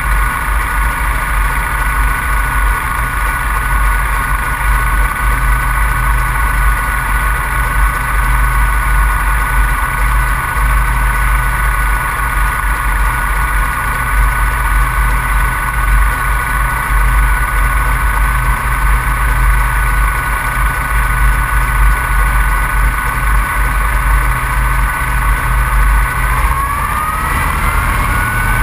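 Open-cockpit biplane's piston engine idling steadily, then speeding up near the end with a rising pitch as the throttle opens.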